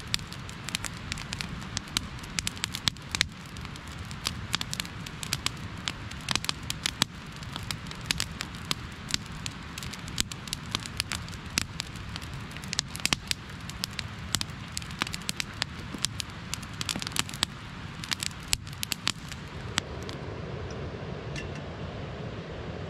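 Wood campfire crackling, with frequent sharp pops and snaps. About 20 seconds in it gives way to the steady hiss of a small gas canister stove burning under a kettle.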